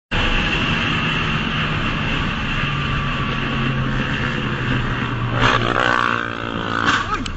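Motorcycle engine running at speed, heard from on board the bike with wind noise over the microphone. About five and a half seconds in, the engine note briefly turns louder and shifts in pitch.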